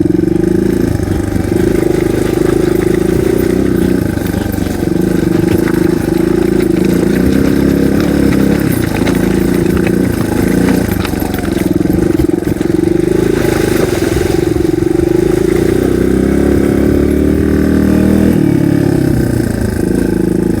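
Single-cylinder dual-sport motorcycle engine running under load on a trail ride, its pitch rising and falling with the throttle.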